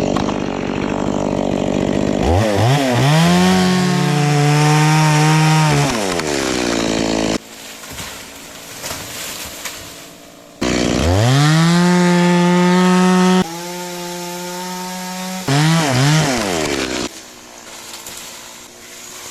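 Stihl two-stroke chainsaw revved up to full throttle and held there in two long bursts of a few seconds each, dropping back to a lower running speed between them, with a few quick throttle blips near the end.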